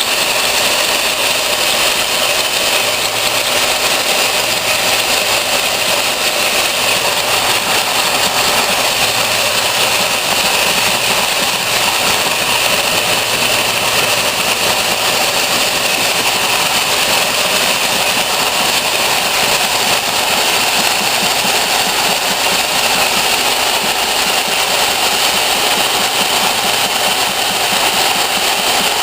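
Portable line-boring machine running steadily with an even, unbroken mechanical noise.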